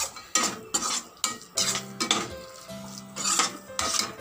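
A perforated stainless-steel skimmer ladle scraping and clinking against a kadai as spleen fry is tossed and stirred, about two strokes a second. This is the dry-frying stage, with pepper powder being mixed through on a low flame and a faint sizzle.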